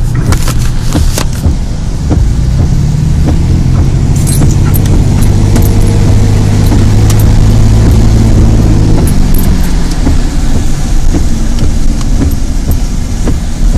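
Truck driving, heard from inside the cab: a steady low engine and road rumble, heaviest from about four to nine seconds in, with scattered sharp clicks and taps over it.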